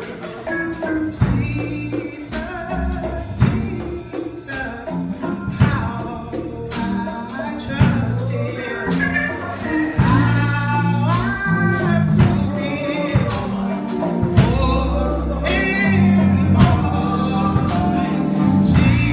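A woman singing a gospel song into a microphone, accompanied by a live band of electric bass guitar and hand percussion: congas, timbales and drums.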